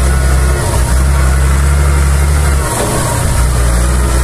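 Farm tractor engine running steadily under way, a loud low drone whose note briefly drops away about three seconds in before picking up again.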